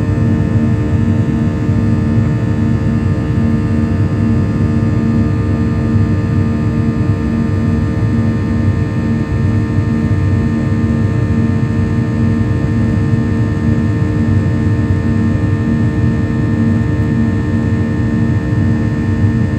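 Cabin noise of a Boeing 737-800 shortly after takeoff, heard by the wing: its CFM56-7B jet engines give a steady, loud drone with several steady hum tones, one of them pulsing slowly and regularly.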